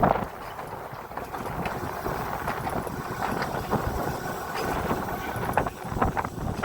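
Electric tram running along its rails: a steady rumble with scattered clicks and knocks from the wheels, a sharp knock at the very start, and wind buffeting the microphone.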